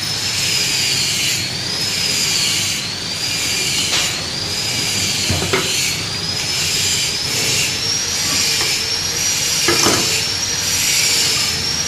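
A power tool running continuously with a high whine that rises and falls over steady noise, and a few short knocks about halfway and near the end.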